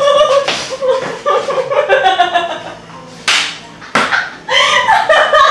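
Voices talking and laughing, with a single sharp slap about four seconds in.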